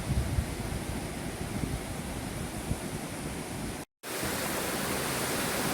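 Steady rush of falling water from a waterfall, with gusty low rumbles of wind on the microphone. After an abrupt cut about four seconds in, the rush comes steadier and a little louder.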